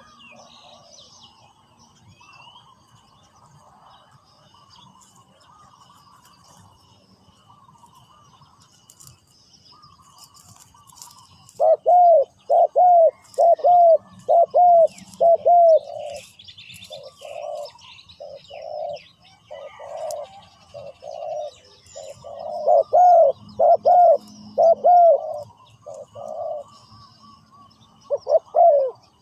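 Spotted dove cooing: loud series of repeated low coos in phrases, beginning about eleven seconds in, with faint chirping of small birds before and under it.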